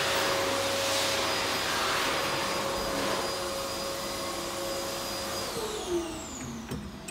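Electric hand dryer running with a loud, steady whirr and whine, then cutting out about five and a half seconds in and winding down, falling in pitch. A single knock about six seconds in, as the toilet's flush lever is pressed.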